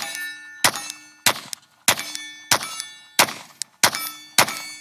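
Glock 43X 9mm pistol fired at a steady pace, about eight shots roughly 0.6 s apart. Each sharp crack is followed by a metallic ringing, like steel targets being hit.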